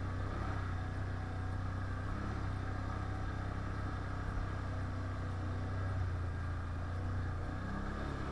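Quad (ATV) engine running steadily at low revs.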